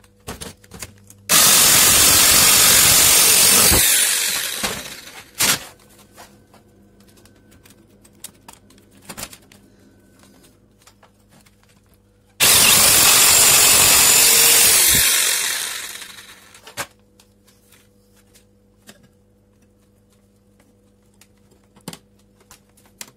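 Electric jigsaw cutting through thin sheet steel in two runs of about three seconds each. Each run starts suddenly and fades out at its end, with light clicks and knocks of the metal sheet being handled in between.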